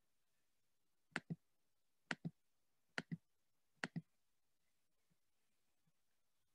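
Four quick double clicks, about one pair a second, then near silence.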